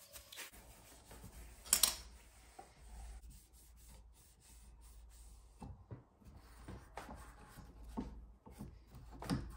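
Paper towel and cloth rubbing and wiping over the metal parts of a lapping machine, in short irregular rustling strokes with a few handling knocks; the loudest strokes come about two seconds in and near the end.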